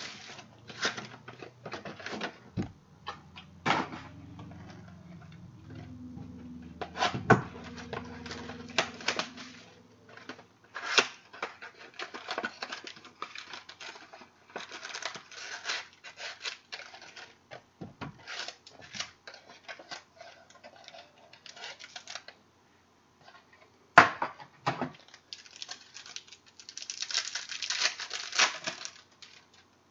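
Trading card packs being opened and handled: foil wrappers crinkling and tearing, with many small clicks and flicks of cards, and a sharp knock about 24 seconds in. A low drone runs under it for several seconds near the start.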